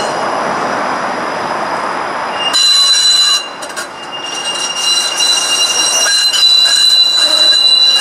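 Flexity Outlook streetcar rolling along the track with a rushing rumble. From about two and a half seconds in, its wheels squeal in steady high pitched tones as it rounds the tight curve of the loop.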